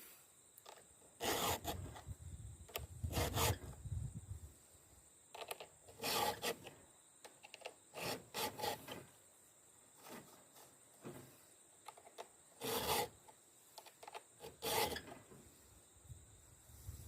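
Hand file grinding the cutter teeth of a full 3/8" chainsaw chain during sharpening: short scraping strokes, singly and in pairs, with pauses between them as the file moves from tooth to tooth.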